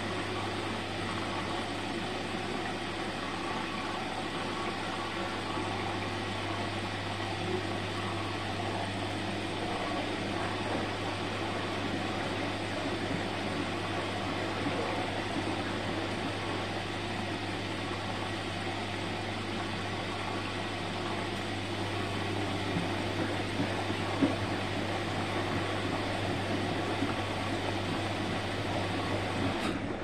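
Bosch Serie 4 front-load washing machine running steadily mid-cycle: a constant low hum under an even mechanical noise that does not let up.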